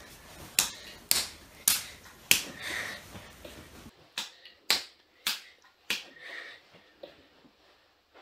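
A child clapping his hands in a steady rhythm, about one clap every 0.6 seconds: four claps, a pause of about two seconds, then four more.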